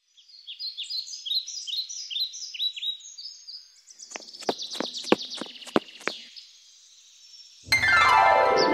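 Birds chirping, a quick run of repeated high chirps for about four seconds, followed by about six sharp knocks in the middle. After a short pause, a loud sound gliding down in pitch starts near the end.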